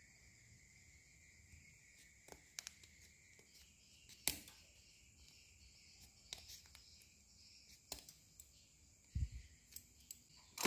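Scissors snipping the edge of a small curled piece of PVC pipe: a handful of sharp, spread-out clicks, the loudest about four seconds in and several close together near the end.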